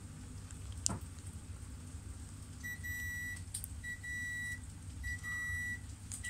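Repeated electronic beeping, a single high tone in beeps just under a second long, about one a second, starting about two and a half seconds in, over a steady low hum.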